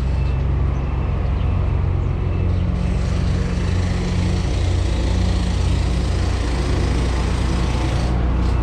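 A vehicle engine running steadily on the move, a constant low drone with road and wind noise over it.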